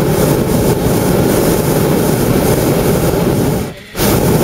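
Hot-air balloon's propane burner firing: a loud, steady roar that cuts out for a moment near the end, then fires again.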